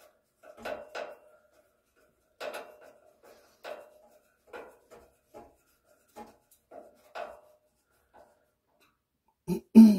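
Screwdriver turning a battery mounting screw into the server rack's threaded hole by hand, a series of short scraping squeaks every second or so. Two louder, deeper sounds come near the end.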